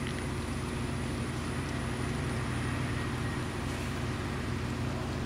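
A steady low hum under an even hiss of background noise, with no sudden sounds.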